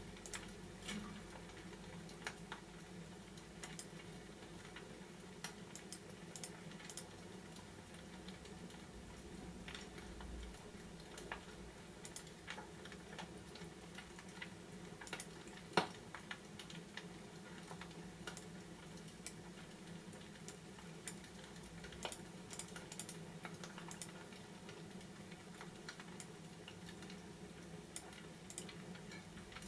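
Fireplace crackling: irregular small pops and snaps over a low steady hum, with one louder pop about 16 seconds in.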